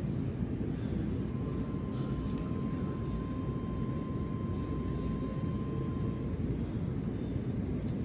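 Steady low rumble, with a faint thin tone held for about five seconds starting a second in.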